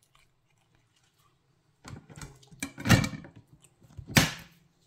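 A person eating close to the microphone: after a quiet start, a run of short chewing and mouth noises, with the loudest near the middle and another sharp one about four seconds in.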